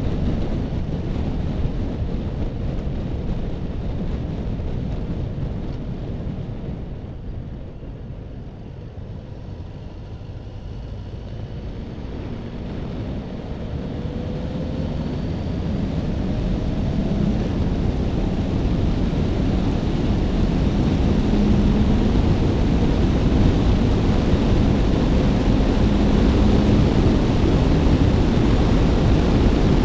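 Suzuki Bandit motorcycle riding at road speed: engine and wind rush over the bike-mounted microphone. The noise eases off about eight to ten seconds in, then grows steadily louder over the next ten seconds and holds.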